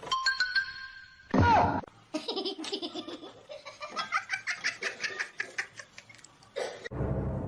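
A person laughing hard in rapid, repeated pulses, after a short loud burst of sound about a second and a half in.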